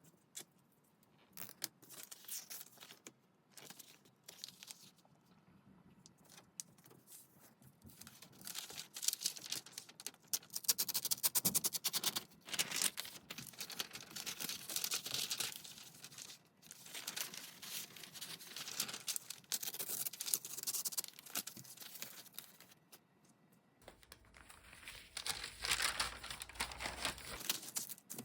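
Paper being handled and torn by hand: irregular rustling, crinkling and tearing strokes with short pauses between them.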